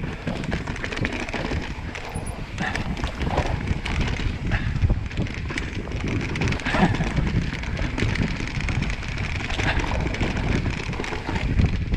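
Mountain bike riding down a dirt trail: a continuous rumble of tyres over the ground with many small knocks and rattles from the bike, and wind on the microphone.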